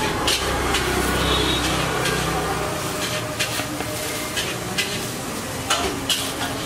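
Steady background din of road traffic, with a low engine hum for the first two and a half seconds and scattered sharp clinks.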